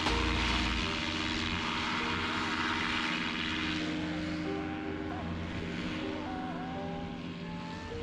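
Paramotor engine running under power with propeller noise, growing fainter from about halfway as the machine moves away.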